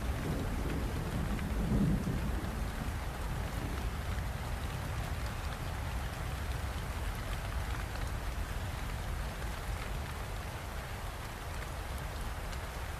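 Steady rainfall hissing, with a low rumble of distant thunder in the first couple of seconds that dies away, leaving the rain alone.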